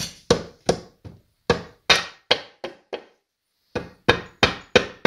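Hammer blows, about three a second with a short pause about three seconds in, knocking on a Suzuki Vinson ATV engine's stuck CVT housing to break it loose from the case.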